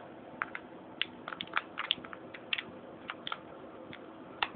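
Handling noise: scattered light clicks and taps of hands fumbling with the camera, the phone and its USB cable, with a sharper knock near the end over a faint steady hum.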